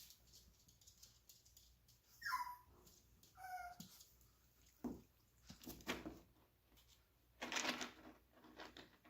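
Chihuahua puppy giving two short high squeaks, the first falling in pitch, followed by several short scuffling rustles as the puppies tussle.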